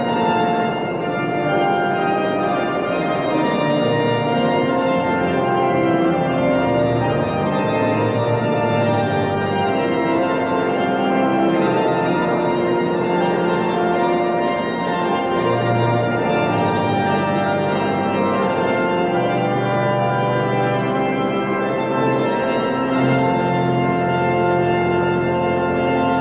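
Organ music: slow sustained chords over held bass notes, changing every second or two.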